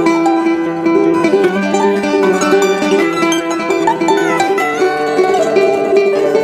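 Background music played on a plucked string instrument, a bright melody of quick picked notes.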